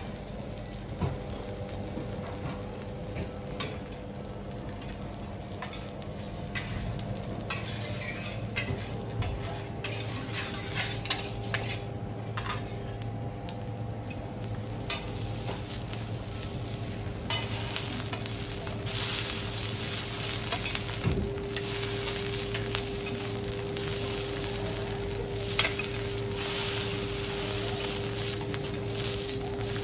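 Food sizzling on a teppanyaki iron griddle, with metal spatulas clicking and scraping against the plate. The sizzle grows louder a little past halfway.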